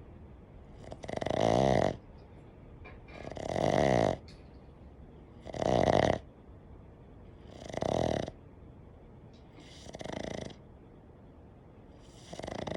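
Boston terrier snoring: six snores in a steady rhythm about two seconds apart, the last three fainter than the first three. The snoring is common in this short-muzzled breed.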